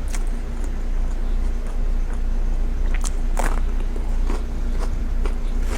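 Close-miked chewing and biting of fast food, with short crunchy crackles, the loudest about three and a half seconds in, over a steady low hum.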